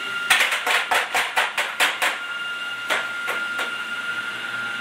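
Toy hammer striking a plastic toy workbench: a quick run of about ten taps over two seconds, then three more spaced taps. A steady high tone sounds underneath.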